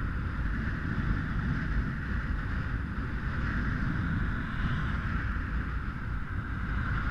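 Wind buffeting the microphone of a GoPro on a mountain bike rolling along asphalt, a steady low rumble with a steady higher hum running through it.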